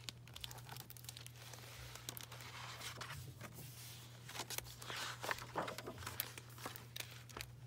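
Hardcover picture book being opened and its pages turned by hand: faint paper rustling with scattered light taps.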